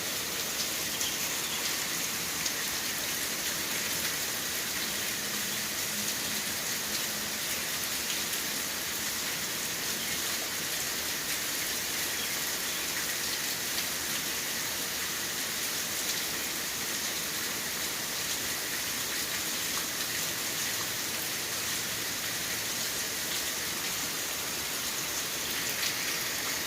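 Steady rain: an even hiss with many fine drop ticks.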